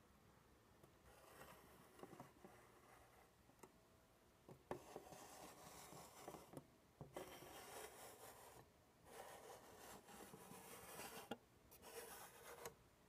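Faint handling noise: soft rubbing and scraping in several stretches of one to two seconds, with a few light taps.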